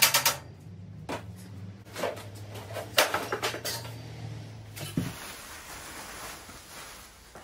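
Metal clanking and rattling as the steel bars of an ATV's shipping crate frame are unbolted and lifted off, in several bursts, with a rapid run of clicks at the start. A steady low hum runs underneath and cuts off suddenly about five seconds in.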